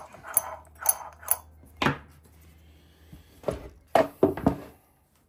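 Metal parts and hand tools clinking and knocking during the reassembly of a chainsaw's clutch side. The sharp, irregular knocks come in a quick run of four in the first second and a half, then a louder cluster about four seconds in.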